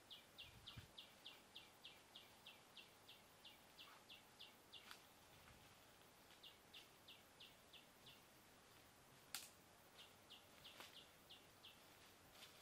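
A bird calling faintly in runs of short, sharp notes, about four a second. A few sharp snaps, the loudest about nine seconds in, fit twigs and dry litter cracking underfoot as someone walks through scrub.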